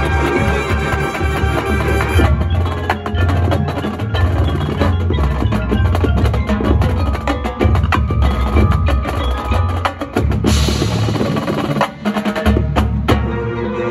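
High school marching band playing a percussion-heavy passage: drum and mallet strikes and a drum roll over sustained low notes, with a brief wash of noise about ten seconds in.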